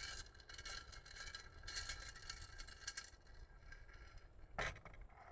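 Wood campfire burning with a steady run of small crackles, and one louder sharp pop near the end.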